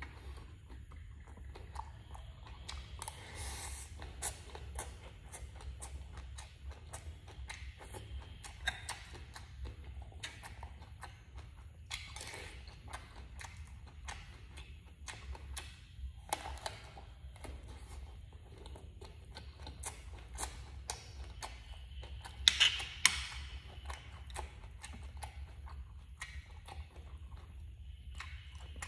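Close-up sounds of a person eating: chewing and wet mouth clicks at an irregular pace, with a few louder sharp sounds a little past two-thirds in, over a steady low hum.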